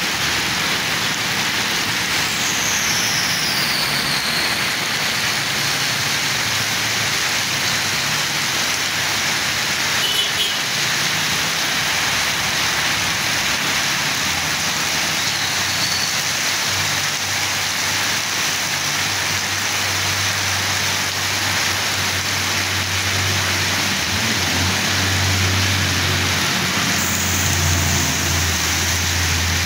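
Very heavy rain pouring onto a road and pavement, a steady dense hiss, as traffic drives through the water. A vehicle's low engine hum grows through the second half and is strongest near the end, as a truck passes close by.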